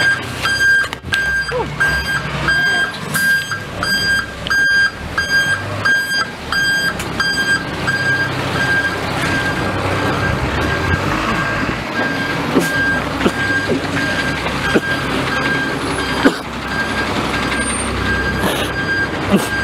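A large vehicle's reversing alarm beeping over and over at one steady pitch, about two beeps a second in the first half and more spaced out later, over a low engine rumble.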